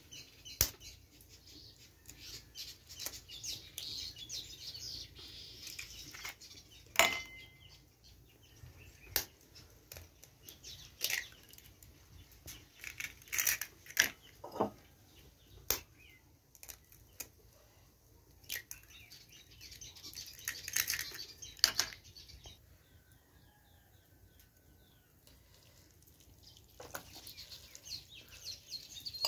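Eggs tapped against a ceramic plate and broken open into it: a series of sharp clicks several seconds apart, with soft crackling of shell in between. Near the end a fork scrapes and clinks against a plate.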